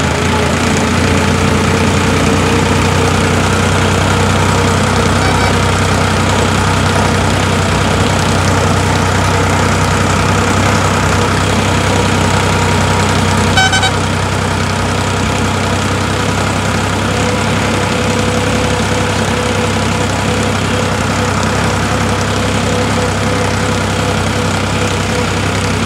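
Farmtrac 60 tractor's three-cylinder diesel engine running at a steady speed while driving, heard from the driver's seat. A short, high beep sounds about halfway through.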